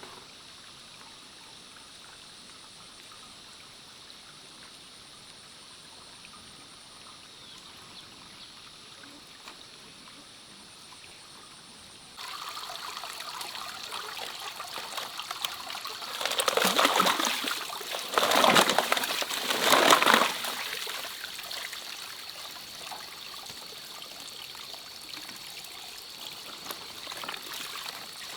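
Water trickling and pouring. It starts suddenly about twelve seconds in, after a stretch of faint hiss, and has three louder pours or splashes in the middle before settling back to a steady trickle.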